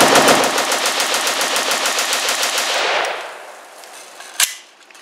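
CZ Bren 2 5.56 mm pistol with an 11-inch barrel firing a rapid string of shots for about three seconds. One more single shot follows about a second and a half later.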